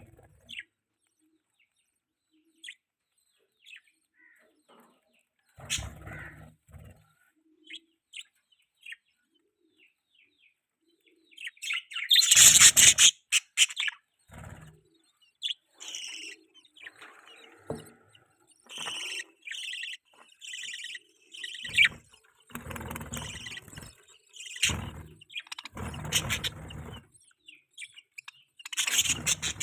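Budgerigars chirping and twittering in short bursts. They are sparse and faint at first, then louder and busier from about twelve seconds in.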